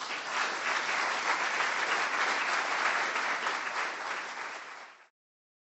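Audience applauding, a dense patter of many hands clapping that thins out near the end and cuts off abruptly.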